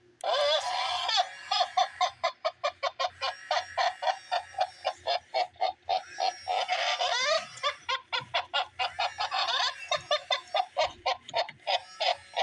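Gemmy Giggling Kris Kringle animated plush Santa playing its recorded giggling laugh through its small speaker: a fast string of ha-ha pulses, about five a second, with a few rising and falling whoops. It starts just after the paw button is pressed and stops near the end.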